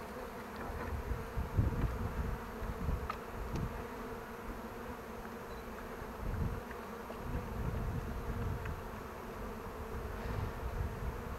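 A large number of honey bees buzzing around an opened hive: a steady, continuous hum, with an uneven low rumble underneath.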